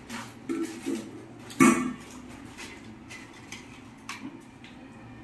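Stainless steel bowls and plates being handled, with a few short clinks and one loud knock about a second and a half in, then light scattered crunches of chips being eaten.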